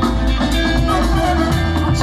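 Loud music with drums and a sustained bass line.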